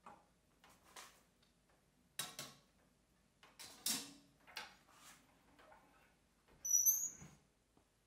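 Dovre 640CBJ cast-iron wood stove being worked: a series of light knocks and metallic clinks at the open firebox, then the door swinging shut about seven seconds in with a short high metallic squeak and a clunk.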